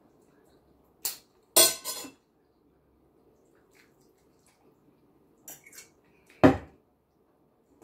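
Metal cutlery clinking against ceramic dishes: a few sharp clinks about a second or two in, then lighter clinks, and near the end a louder knock with a low thud as the ceramic bowl meets the plate.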